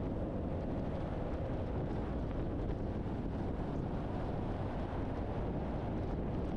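Steady low rumble of a truck driving at speed: a mix of road, engine and wind noise, even throughout with no distinct events.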